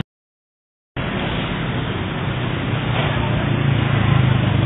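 Road traffic noise with a vehicle engine running, its low hum growing louder about three seconds in; the first second is dead silence.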